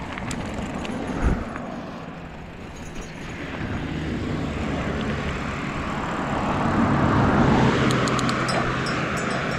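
Wind rush and tyre noise of a mountain bike rolling along a paved path, with a car passing on the road alongside, getting louder to a peak about seven to eight seconds in.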